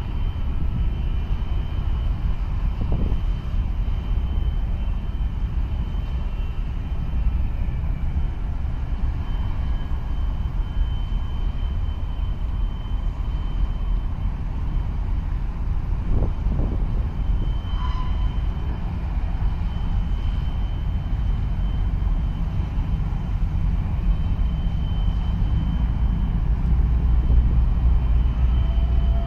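Steady low engine rumble from harbour vessels working across the water, with a thin high whine held steady above it.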